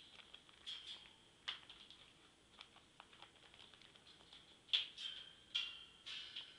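Black-headed caique rubbing and nibbling at a sneaker: faint, scattered beak clicks and scratchy rustles, with a few louder scrapes in the second half.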